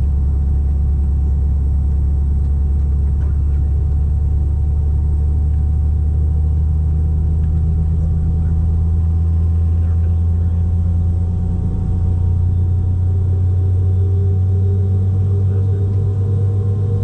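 Steady low drone inside the cabin of a Boeing 717-200 airliner, with a constant hum and a faint higher whine; about twelve seconds in the pitch of the hum steps up and stays higher.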